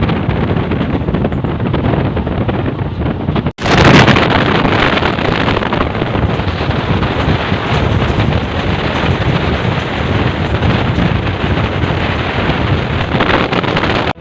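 A moving passenger train's running noise heard from on board, with strong wind blowing on the microphone. It cuts out sharply about three and a half seconds in and comes back a little louder.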